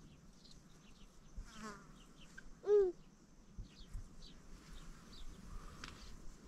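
Scattered short, high chirps of small birds or insects, with one short, louder animal call that rises and falls about three seconds in.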